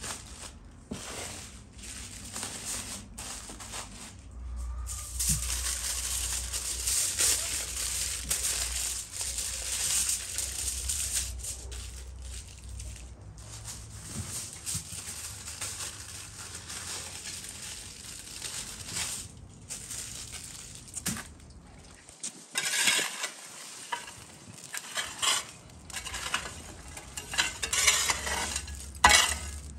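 Aluminium foil crinkling and rustling as potatoes are wrapped in it by hand. Near the end, a rake scrapes and knocks glowing embers across the brick floor of a wood-fired oven.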